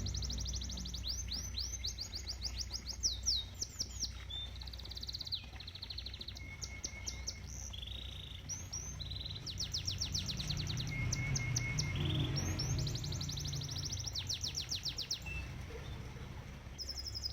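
Canary singing a long song of rapid trills, each phrase a fast run of repeated high notes changing to the next after a short break. Under it runs a steady low rumble of koi pond water.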